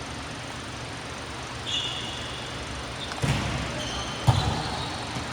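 Volleyball being played: short high shoe squeaks, then two sharp hits about a second apart, over steady background noise.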